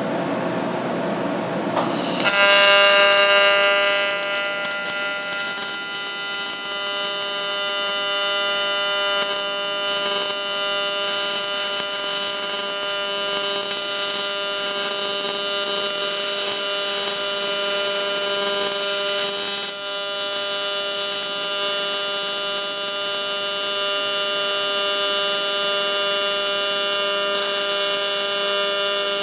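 Welding arc on the aluminum transmission stub: a steady buzz that starts about two seconds in and holds, dipping briefly once near the twenty-second mark.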